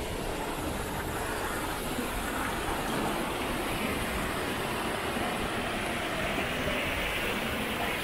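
Waterfall: a steady, even rush of falling water with no change in level.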